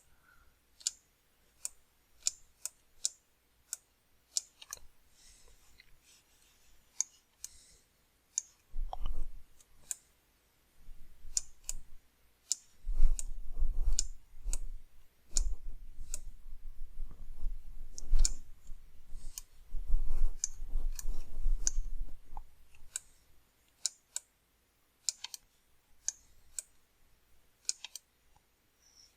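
Irregular sharp clicks of a computer mouse and keyboard, a few a second. A low, uneven rumble runs underneath from about nine to twenty-two seconds in.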